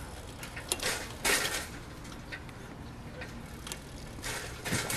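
Schwinn Meridian tricycle rolling over a concrete sidewalk: scattered light clicks from the bike, with two brief louder rushes of noise, about a second in and near the end.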